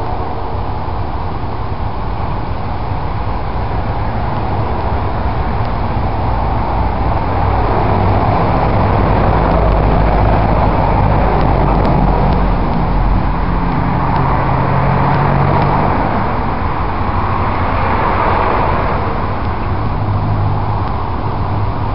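Diesel freight locomotives running, a steady low engine drone under a broad rumble that swells about halfway through and again near the end.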